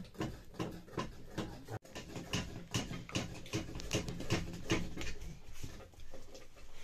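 Metal spoon and ladle stirring in a metal cooking pot, knocking and scraping against its sides about two to three times a second, with a brief break about two seconds in.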